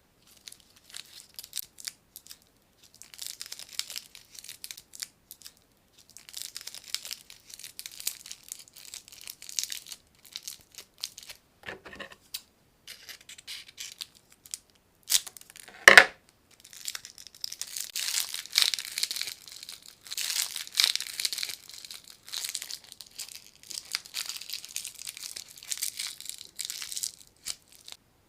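Plastic lollipop wrappers crinkling and tearing as the sweets are unwrapped, in bursts of rustling with one loud sharp snap about halfway through.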